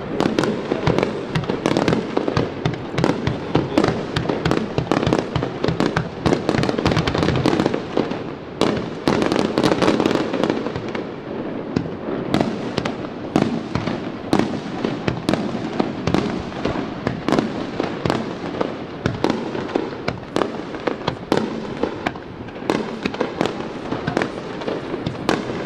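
Fireworks display: a continuous barrage of sharp bangs and crackles, several a second, over a steady rumble of overlapping reports.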